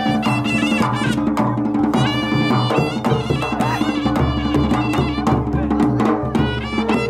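Himachali pahari folk dance music (nati): a reedy wind melody over a steady drone, with drums beating a regular rhythm.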